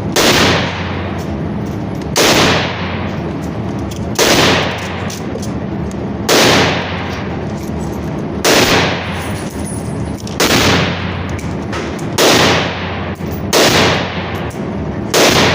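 AR-15 rifle in 5.56 mm firing nine single shots about two seconds apart, a little faster near the end, each shot ringing out briefly.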